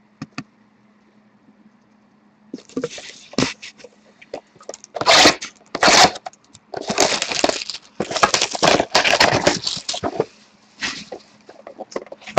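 A sealed trading-card box being opened by hand: irregular crackling, tearing and scraping of its wrapping and cardboard as the packs are pulled out, starting a couple of seconds in after a near-quiet moment.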